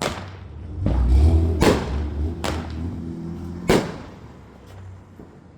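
Fireworks going off in four sharp bangs, over the low steady running of a car engine as the car drives slowly in reverse; the engine fades near the end.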